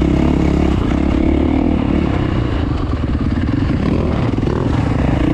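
Gas Gas 450F four-stroke single-cylinder dirt bike engine, fitted with a high-compression piston, running steadily without revving up or down.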